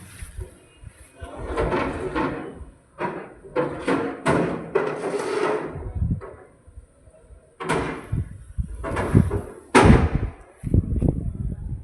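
Construction work: irregular knocks and scraping noises, with two sharper bangs in the second half.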